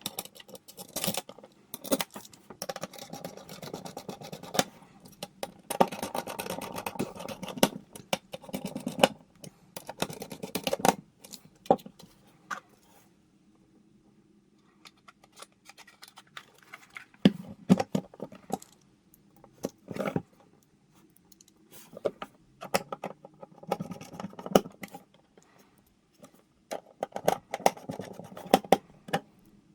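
Hands working on a small desktop computer's parts: irregular clicks, taps and scraping of plastic and metal pieces, with a pause of a few seconds about midway.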